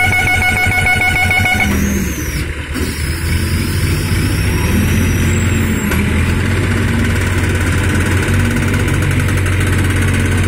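Diesel engines of several hydra mobile cranes running steadily under load while lifting and shifting a boat. A steady horn sounds over them and cuts off about two seconds in.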